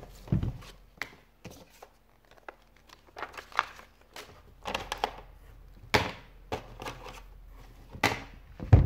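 Hands unpacking a speaker box: paper and tissue wrapping rustling and crinkling, with scattered handling clicks and knocks and one louder knock near the end.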